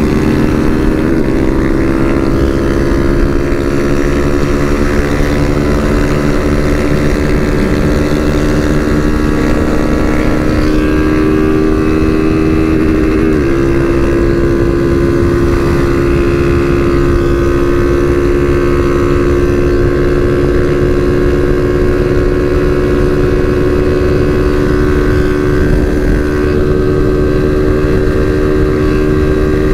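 Honda CG 160 Fan's single-cylinder four-stroke engine held at high revs at full throttle at road speed. Its pitch creeps slowly upward and wobbles briefly about 13 seconds in, over a steady rush of wind.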